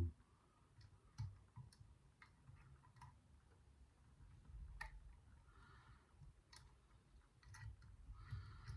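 Faint, irregular clicks and light scraping of a lever pick and tension tool working the levers inside a small four-lever safe drawer lock, about a dozen small ticks spread unevenly.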